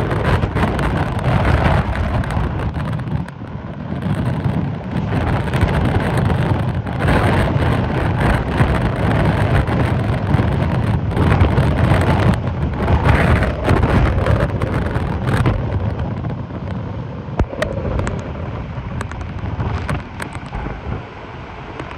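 Hurricane-force wind and driving rain: the wind buffets the microphone with a heavy rumble, rising and falling in gusts, and eases somewhat in the last few seconds.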